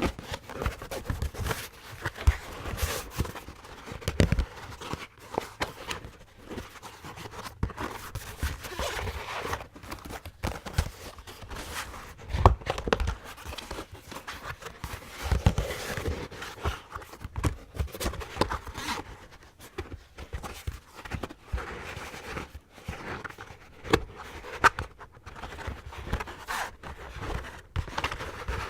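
Plastic dog cone (Elizabethan collar) worn by a moving dog: irregular clicks, knocks and rustles of the cone, with dull low thumps.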